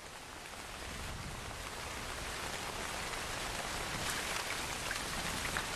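Heavy tropical rain falling on rainforest foliage, a steady hiss that grows slowly louder.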